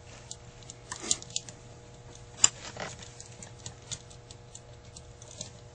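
Light, scattered metallic clicks and taps from hands working the choke and linkage parts of a Carter AFB carburetor, with one sharper click about two and a half seconds in.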